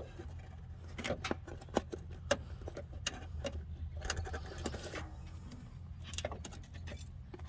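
Scattered light clicks and metallic taps of hand work on a new front shock absorber while cutting the band that holds it compressed, over a steady low hum.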